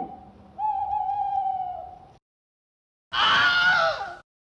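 A voice holds one steady high note for about a second and a half. After a short silence comes a loud, sharp sneeze lasting about a second.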